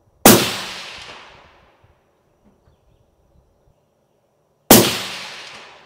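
Two shots from a suppressed Savage Axis bolt-action rifle, about four and a half seconds apart. Each is a sharp crack followed by an echo that dies away over a second or so.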